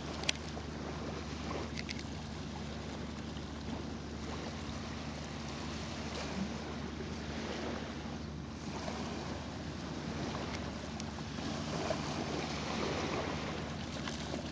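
Wind on the microphone over small waves lapping at a sandy shore, a steady rushing noise, with one sharp click just after the start.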